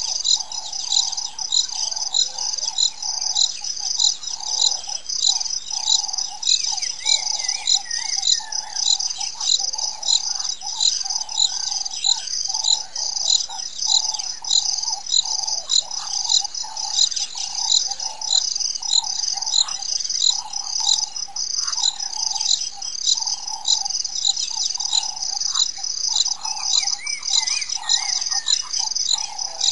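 Steady, evenly pulsing chorus of insect and bird calls, with a short warbling bird call about seven seconds in and again near the end.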